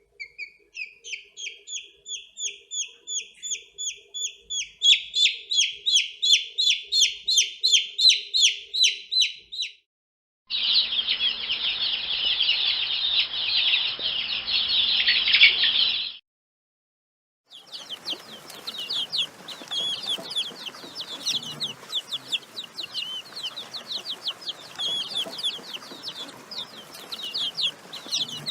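Baby chicks peeping. First comes a regular run of quick high peeps, about two to three a second, climbing in pitch and growing louder. After a short break, a dense chorus of many chicks cheeping together over a low steady hum cuts off sharply. After another silence, a crowd of chicks chirps busily.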